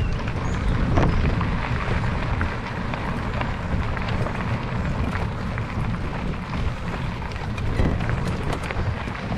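Wind rumbling steadily on the microphone, heavy in the low end, with a few faint clicks through it.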